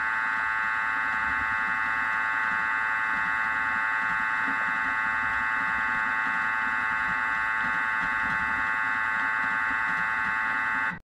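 Thermomix TM5 motor running steadily at speed 5, its blades mixing thick chocolate cake batter: a steady high whine over a low churning rumble. It cuts off suddenly near the end.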